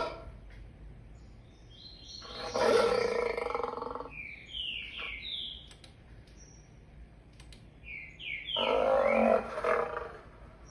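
Lion roaring, apparently a recording played back from a computer: two long roars, the first starting about two seconds in and the second near the end, with shorter falling calls before and between them.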